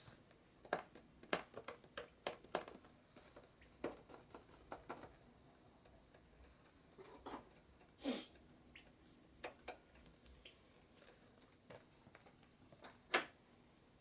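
Irregular light clicks and taps of hands working a motorcycle's front brake master cylinder and lever while bleeding the hydraulic brake, with louder short sounds about eight and thirteen seconds in.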